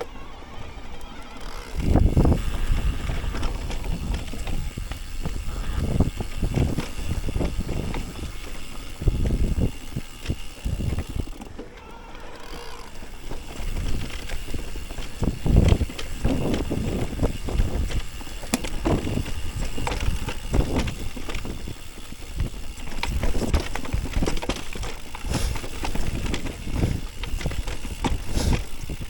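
Mountain bike riding downhill over rough ground: tyres rolling on dirt, with frequent low thumps and rattles as the bike hits bumps.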